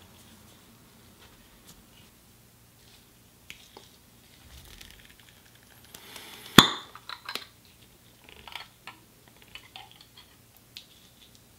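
Glass jar of strawberry jam being handled: one sharp loud click a little past halfway, as the jar is gripped and opened, then a table knife clinking and scraping against the glass as jam is scooped out.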